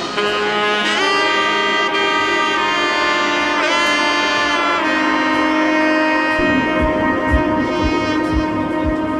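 Background music: a held melodic lead line with pitch bends, joined by a steady low beat about six and a half seconds in.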